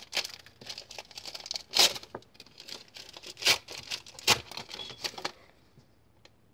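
The foil wrapper of a 2017 Panini Score football card pack crinkling and being torn open by hand, with several sharp ripping strokes among steady crackling. The crackling stops about five seconds in.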